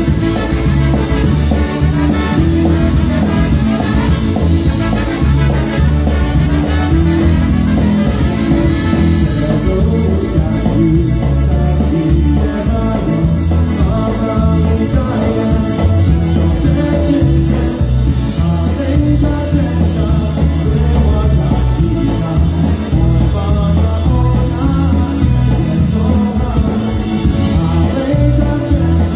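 Live polka band playing a song at full volume, brass over a steady bass beat.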